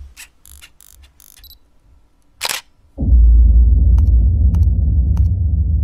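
Intro-animation sound effects: a few short glitchy static crackles, then a whoosh and a deep booming hit about three seconds in that keeps rumbling. Three sharp mouse-click sounds come over the rumble, one for each animated like, subscribe and bell button.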